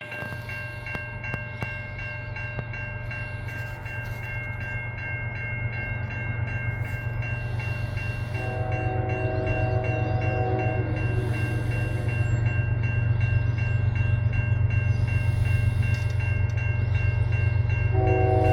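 CN diesel freight locomotive approaching a level crossing, its engine rumble growing steadily louder. The air horn sounds one long blast of about two and a half seconds some eight seconds in, and a second blast begins near the end, as in a grade-crossing horn sequence. A crossing bell rings steadily underneath.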